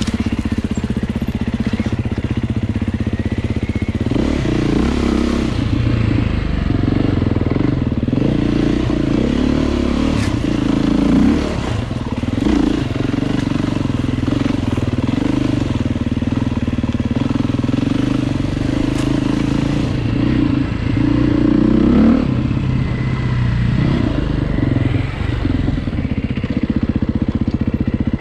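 A motor vehicle's engine running continuously, its revs rising and falling several times: about a sixth of the way in, near the middle, and again about three quarters of the way through.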